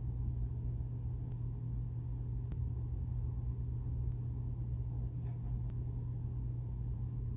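Steady low background hum, with a few faint soft taps as comic books are laid down on a cutting mat.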